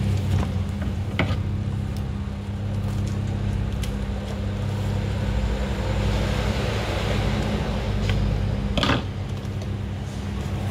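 Cardboard parcel being handled and its packing tape cut open: scratching and rustling of cardboard and tape, with a few knocks, the sharpest about nine seconds in, over a steady low hum.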